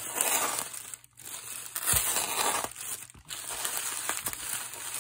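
Plastic poly mailer crinkling and rustling as it is torn open by hand, in three stretches with short pauses about one and three seconds in.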